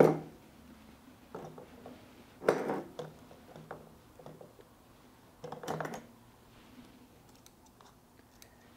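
Small ceramic and plastic bonsai pots knocking and clinking against each other and the table as they are handled, the loudest knock right at the start and a few more over the next six seconds. A few faint metallic clicks near the end as bonsai shears are handled.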